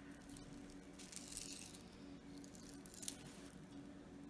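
Faint handling noise from strands of faceted glass crystal rondelle beads held in the hands: soft rustles and a light click or two, over a faint steady hum.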